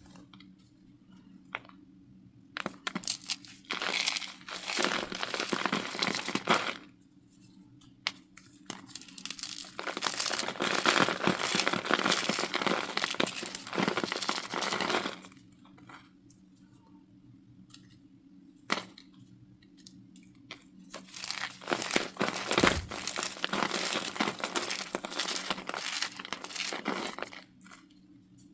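Cornstarch being crushed: dense crunching and crackling in three long bouts of several seconds each, separated by short quiet pauses with the odd single crack.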